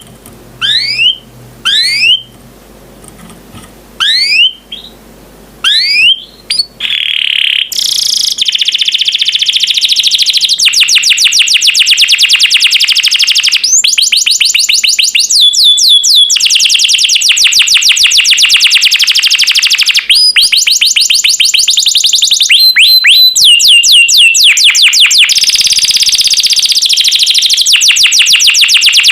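Domestic canary singing: first a string of rising whistled notes about once a second, then from about eight seconds in a continuous song of rapid trills and rolls.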